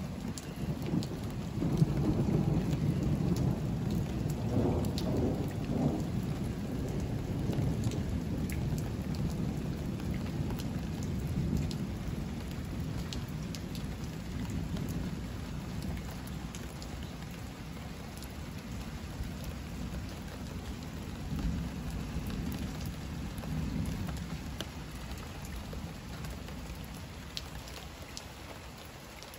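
Heavy thunderstorm: steady heavy rain with scattered drop ticks, and a long low thunder rumble that starts about two seconds in and slowly dies away. A weaker rumble follows later.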